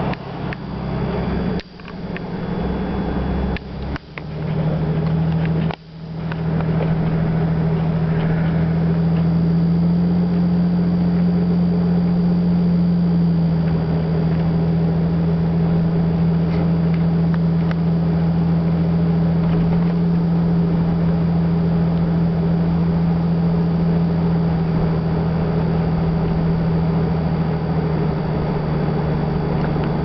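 Steady drone of a car driving, heard inside the cabin: a constant low engine hum over road noise. In the first few seconds the sound cuts out sharply three times, then runs on evenly.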